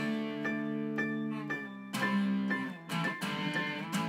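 Background music: held chords with sharp attacks, changing every second or so, ending on one last struck chord that rings out.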